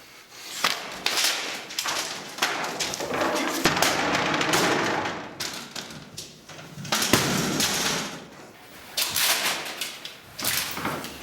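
A run of irregular thuds and knocks mixed with rough, noisy rustling that comes and goes in bursts.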